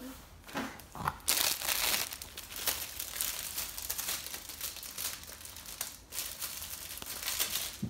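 Plastic wrapper of a snack cake crinkling as it is handled and squeezed, starting about a second in with a brief pause near the end.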